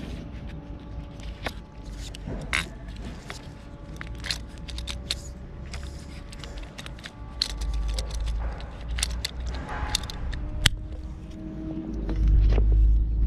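Light metallic clinks, taps and scrapes from hand work on a metal water-pipe fitting, over a steady low rumble that swells to its loudest in the last second or so.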